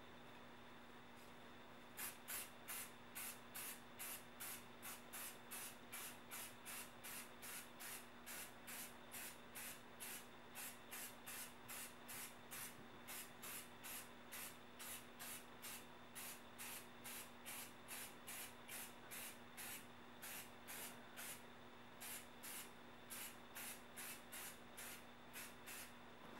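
Aerosol spray-paint can sprayed through a vinyl camouflage stencil in short, quick hissing bursts, about two a second, starting about two seconds in and stopping near the end.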